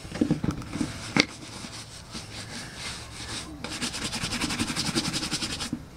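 Bristle shoe brush scrubbing over a black leather Bestard mountain boot, buffing the treated leather. The strokes are irregular at first, with one sharp tap a little over a second in, then become a quick, even back-and-forth brushing.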